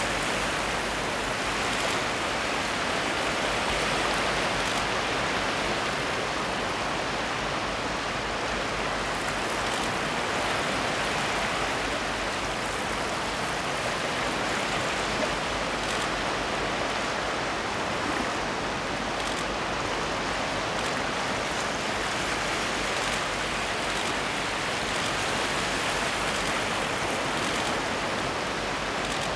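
Steady hiss and wash of small waves breaking and running over a rocky shore, with no bird calls standing out.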